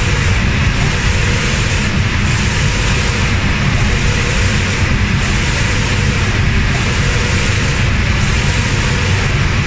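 Automatic spray-painting machine at work: a steady low rumble with the hiss of spray guns over it. The highest part of the hiss dips briefly about every second and a half.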